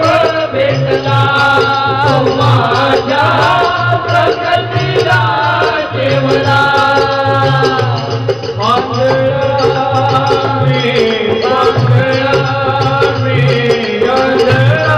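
Marathi devotional bhajan: a sung melody with keyboard accompaniment over a steady dholak drum beat.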